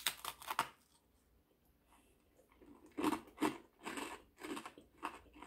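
A person biting into a crusty piece of food with a few quick crunches. After a pause of about two seconds, steady chewing follows at about two or three chews a second.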